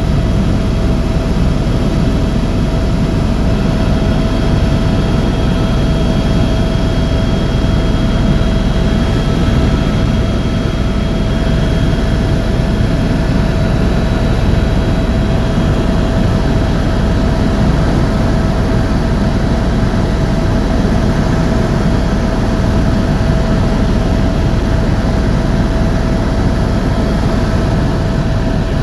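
Helicopter turbine engine and rotor noise, loud and steady, with a constant whine running through it.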